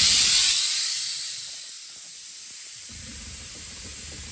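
Air suspension on a 1970 VW Beetle dumping air from the rear air bags to lower the car: a sudden loud hiss of air venting that eases over about two seconds into a steadier, quieter hiss.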